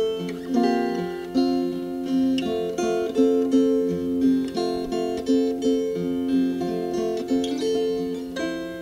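Background music: acoustic guitar playing plucked, ringing notes at an even pace.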